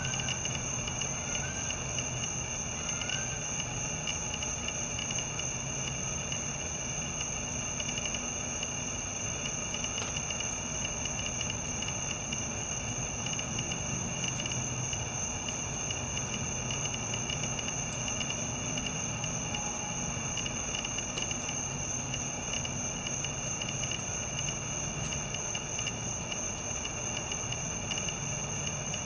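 Crickets trilling steadily, a continuous high ring with a second, lower steady tone beneath it.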